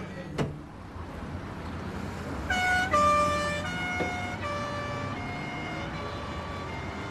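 Two-tone emergency-vehicle siren starting about two and a half seconds in, alternating between a high and a low note roughly every 0.7 seconds and gradually fading, over a low steady rumble. A short, sharp downward swish sounds near the start.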